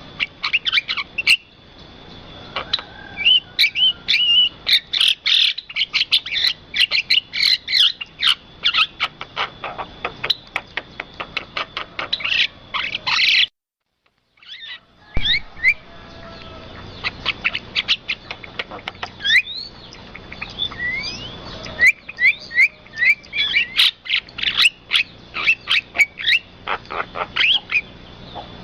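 Birds chirping and twittering in many quick short calls. About halfway through, the sound cuts out for a second or so, then the chirping resumes.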